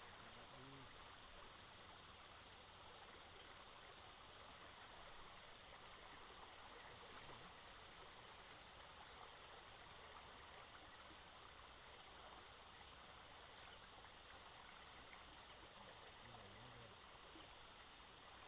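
Insects, crickets or cicadas, keeping up a steady, shrill chorus: one continuous high-pitched drone with faint, regular chirps beneath it.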